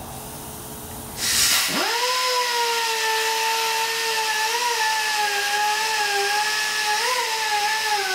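Handheld pneumatic tool on a shop air line: a short hiss of air about a second in, then the tool spins up to a steady, high whine that holds with only slight wavers in pitch.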